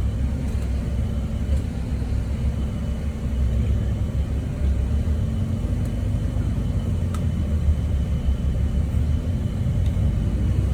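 Steady low rumble of vehicle engines and traffic, with a faint thin high tone and a few light ticks.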